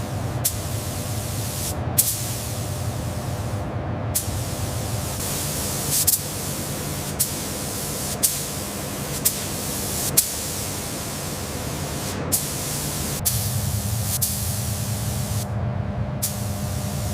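A steady hiss of spraying, with a low hum under it, broken by sharp clicks every second or two and two brief gaps near the end.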